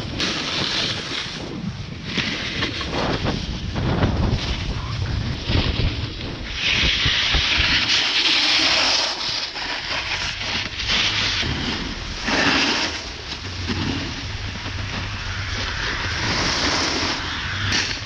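Wind rushing over the microphone and snowboards scraping and carving across packed snow. The scraping comes in louder hissing surges, the longest about seven seconds in.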